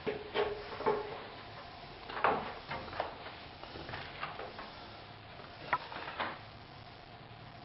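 Irregular knocks, clicks and scrapes of hand work, with a short squeak near the start and a sharper knock about two seconds in.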